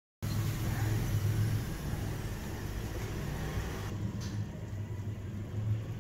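Besan naan frying in oil in a pan: a steady sizzle over a low, steady hum. The sizzle thins about four seconds in as the naan is lifted out of the oil.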